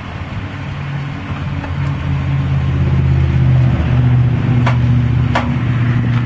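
2003 Ford Explorer running at low speed with a steady engine hum. Near the end come two sharp clicks less than a second apart: the clicking or popping that the truck makes once or twice at a time when the wheel is turned to the right at low speed.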